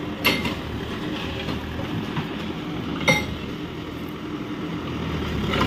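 Steady low mechanical rumble, with two sharp knocks about three seconds apart.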